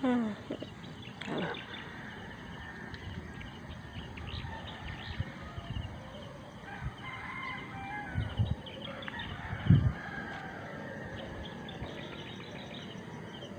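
Rooster crowing at the start, then chickens and small birds chirping over a steady farmyard background, with a few short low knocks.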